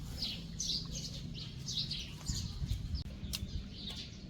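Small birds chirping: short, high chirps repeating several times a second over a low, steady rumble.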